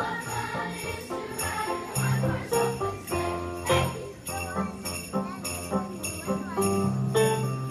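Hand-held sleigh bells shaken in a steady rhythm on the beat of a Christmas song, over the song's musical accompaniment.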